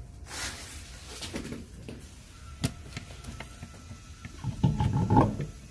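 Alloy wheel and tire being lifted and fitted onto the rear hub's wheel studs: rustling and a few light knocks, then a louder burst of scraping and clunking near the end.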